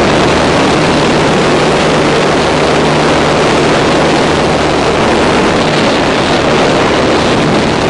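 Jump plane's engine and propeller running with wind rushing past the open door: loud, steady noise with a low engine hum underneath.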